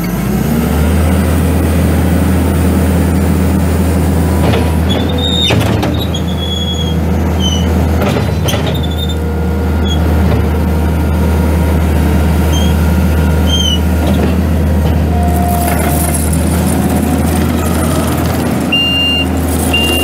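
Kubota SVL90-2 skid steer's 3.8 L four-cylinder turbo diesel running steadily, with a few short high squeaks midway. Near the end its backup alarm starts beeping at about one beep a second.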